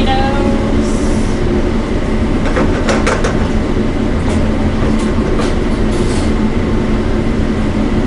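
Vegetables and eggs sizzling in a sauté pan on a commercial gas range while a silicone spatula stirs and scrapes, with scattered clicks of the spatula against the pan. All of it sits over a steady, loud kitchen rumble.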